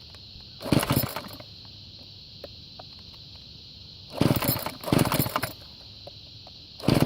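McCulloch string trimmer's small two-stroke engine being pull-started: four quick, rough recoil-starter pulls, one near the start, two in a row about four seconds in, and one near the end, with the engine not catching in between. The owner puts the trouble down to the engine sucking air and fuel lines that need redoing.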